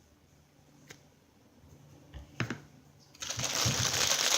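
A few light clicks and taps from handling, then, about three seconds in, loud continuous crinkling of a plastic packaging bag being handled.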